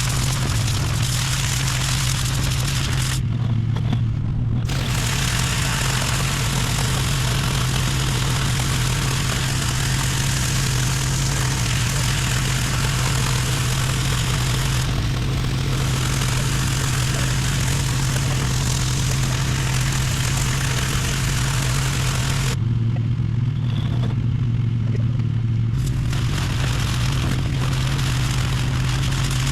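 Gas-engine pressure washer running steadily, with the hiss of the water spray over the engine's hum. The spray hiss cuts out twice, once for about a second a few seconds in and once for about three seconds later on, while the engine keeps running.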